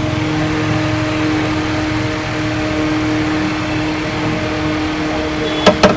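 Steady mechanical hum with a constant low tone. Near the end, two sharp clicks come close together.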